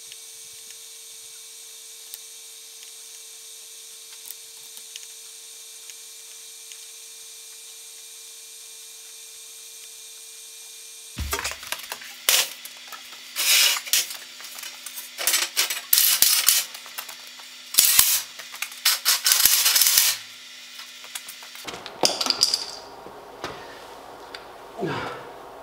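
A large steel plate clanging and scraping as it is slid onto the metal slats of a CNC plasma table, in loud repeated metallic crashes for several seconds and then lighter clatter as it settles. Before that, about the first eleven seconds hold only a steady hum.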